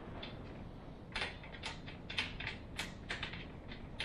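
Metal parts of a unistrut roof support bar being worked by hand as its nut is threaded on: a run of irregular short clicks and scrapes, starting about a second in.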